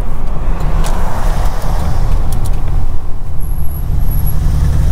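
A Chevy Suburban being driven, its engine and tyres giving a steady low rumble heard from inside the cabin.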